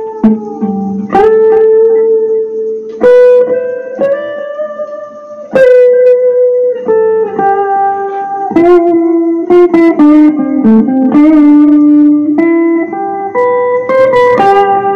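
Electric guitar playing a slow lead melody of held single notes, picked sharply, with some notes bent and wavering in pitch.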